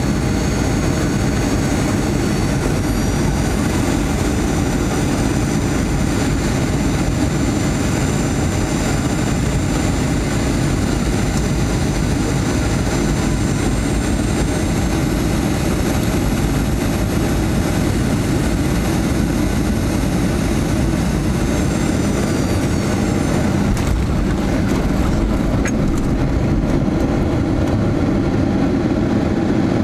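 Cabin sound of a Boeing 737-800's CFM56 jet engines on final approach: a steady roar with a high fan whine that glides in pitch a few times as thrust is changed. About three-quarters of the way through there are a few short thumps as the jet touches down, and the whine fades into a low runway rumble with the spoilers up.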